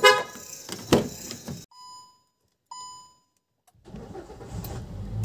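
A brief voice at the very start, then two short electronic beeps about a second apart, then the low steady rumble of a car running, heard from inside the cabin.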